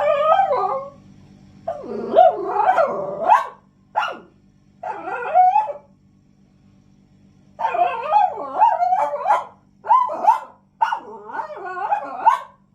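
A French bulldog barking and howling in several bouts, its pitch bending up and down, with short pauses between.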